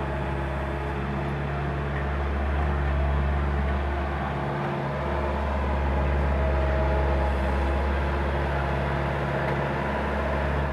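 Bobcat skid-steer loader's engine running steadily, its level shifting a little as the machine works the excavation.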